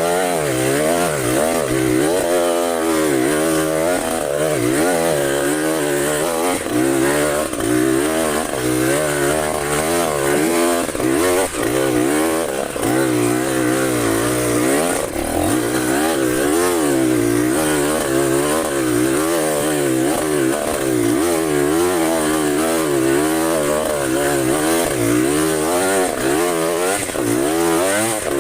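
Trail motorcycle engine running under a constantly changing throttle, its pitch rising and falling every second or so as the bike is ridden.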